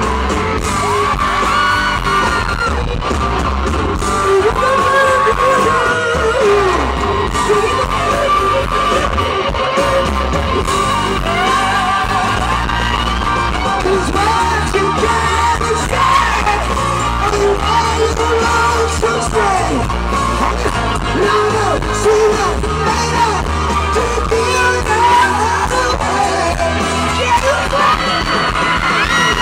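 Loud live rock music: an electric guitar playing with a singer's yelled, sung vocals over it.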